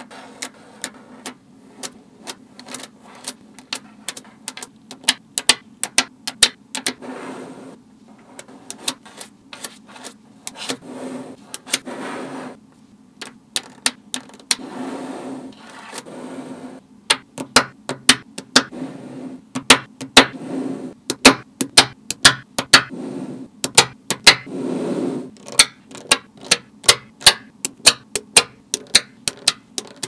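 Small magnetic balls clicking sharply as they snap onto one another, in irregular runs of many clicks, with short spells of rattling between.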